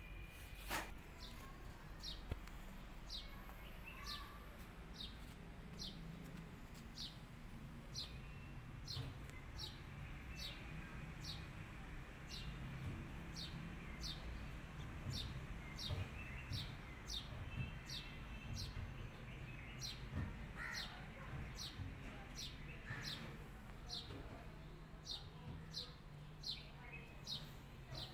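A bird repeating one short, high chirp that falls in pitch, over and over at a steady pace of roughly three chirps every two seconds, over a low steady background rumble.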